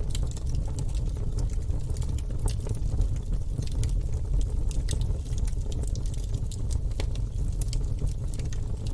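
Wood fire burning in a fireplace: a steady low rumble of flames with frequent irregular sharp crackles and pops from the burning logs.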